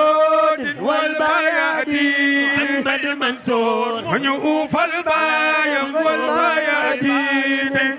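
Male voices chanting a Sufi devotional praise song in Wolof, the refrain naming Mansour, sung on long held notes that slide between pitches.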